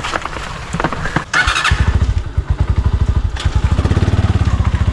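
Motorcycle engine starting about a second and a half in, then running with a steady, rapid beat of exhaust pulses.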